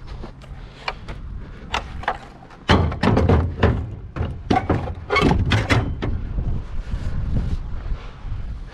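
Scrap being handled and loaded: a series of knocks and clunks, with a low rumble underneath from about three seconds in.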